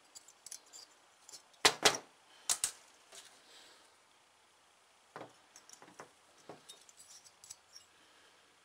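Metal clinks and knocks from small two-stroke engine parts and hand tools being handled on a workbench. There are two pairs of sharp knocks about two seconds in, then lighter scattered taps and clicks.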